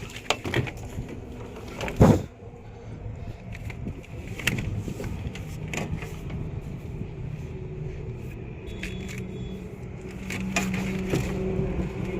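Knocks and clinks of hand tools on metal, one much louder knock about two seconds in, over the steady hum of a running engine that grows louder near the end.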